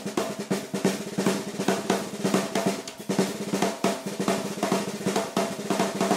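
Ludwig Junior 12-inch kids' snare drum played fast with sticks in a solo: quick strokes and rolls, the head ringing with a clear pitch under the snare buzz.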